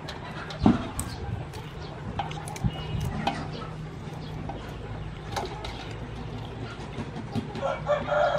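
Kitchen scissors snipping through mantis shrimp shells over a metal basin of water, with knocks and clicks of handling. There is a series of sharp clicks, and the loudest knock comes just under a second in.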